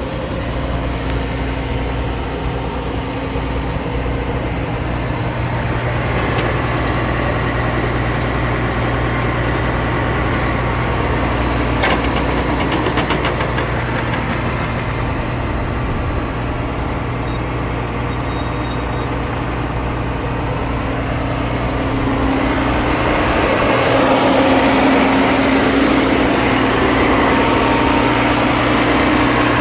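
Cummins 5.9-litre diesel engine of a Blaw-Knox PF-4410 asphalt paver running steadily at idle, growing somewhat louder about three-quarters of the way through.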